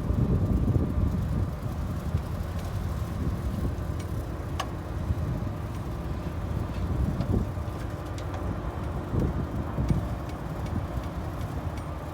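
Bulldozer's diesel engine running steadily with a low rumble, with a few faint clicks and clanks over it.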